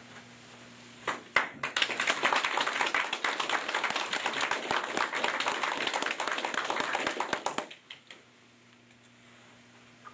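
Small audience clapping: a few scattered claps about a second in, then several seconds of steady applause that stops fairly abruptly about three quarters of the way through.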